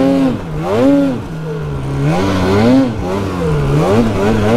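Two-stroke mountain snowmobile engine revving up and down over and over, about once a second, as the throttle is worked to push the sled through deep snow.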